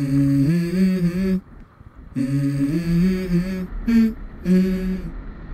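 A man's voice humming a tune in short phrases of held notes that step up and down, with brief breaks between phrases.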